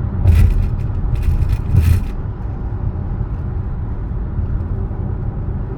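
Steady road and tyre rumble inside a SsangYong Torres SUV's cabin at highway speed. Three brief scraping noises come in the first two seconds.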